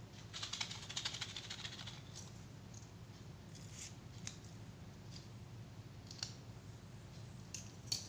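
Scissors snipping: a quick run of small crisp clicks and snips in the first couple of seconds, then a few single clicks, the sharpest near the end.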